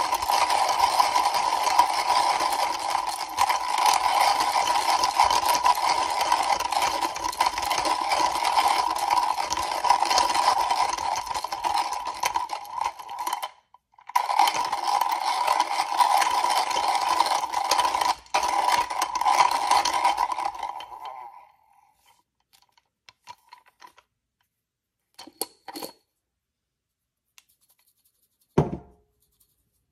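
Comandante C40 MKIII hand coffee grinder's burrs crunching beans as the crank is turned steadily, a continuous grinding that pauses briefly about halfway through and stops about two-thirds of the way in. A few light clicks and one dull knock follow near the end.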